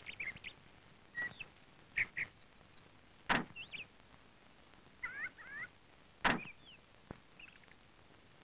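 Birds chirping in short, scattered calls, with a sharp clunk about three seconds in and a louder one just after six seconds.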